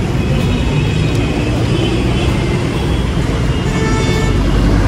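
Busy city road traffic: buses and cars passing in a steady, loud rumble, with a few held tones in the second half.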